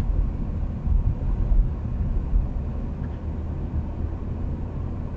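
Low, steady rumble of a car's engine and tyres heard inside the cabin through a dashcam microphone, while the car picks up speed on an open road.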